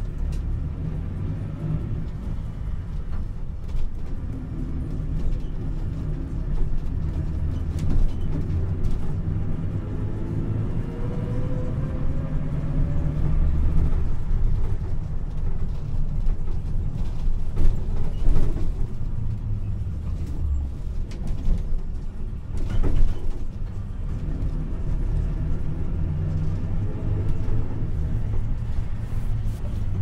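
Inside a taxi's cabin on the move: a steady low rumble of engine and road noise. A rising whine about a third of the way in, and a few short knocks.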